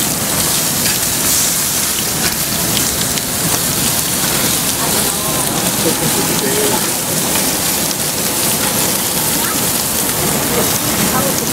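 Steaks, sausages and vegetables sizzling on a gas grill: a steady hiss.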